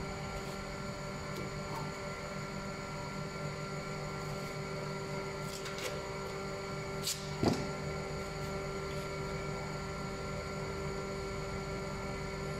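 A steady hum of several tones, with a few faint clicks a little before halfway and one short knock a little past halfway.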